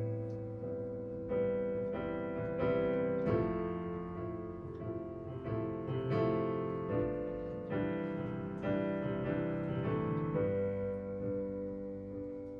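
Piano or electric keyboard playing slow chords and a melody, new notes struck about every second.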